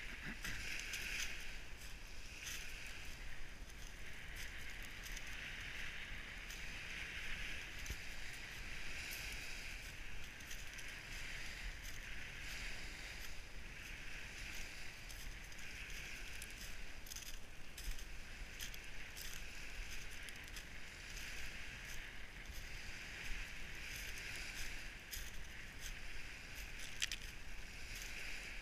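Small waves washing up a pebble beach and draining back, a hissing wash that swells and fades every two to three seconds, with light clicks of pebbles.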